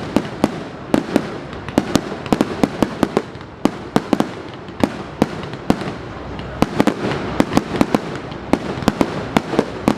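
Fireworks going off: a dense, irregular run of sharp bangs, several a second, over a steady background of more distant bangs and crackle.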